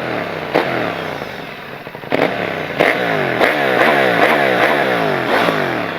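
KTM 890 Adventure's parallel-twin engine through a cheap aftermarket AliExpress exhaust, revving. A few sharp cracks come in the first few seconds; from about halfway through, the engine pitch rises and falls several times a second in quick throttle blips.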